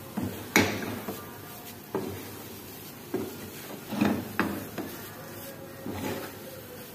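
Spatula stirring and scraping a thick carrot burfi mixture in a frying pan, with irregular knocks and scrapes against the pan about once a second.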